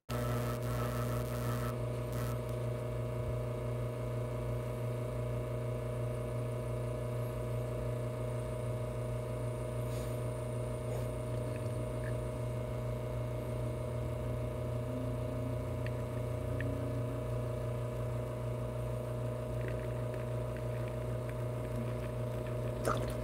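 Lelit espresso machine's pump running with a steady hum as it pushes water through the puck during a shot of espresso, cutting off near the end when the roughly 24-second shot is stopped.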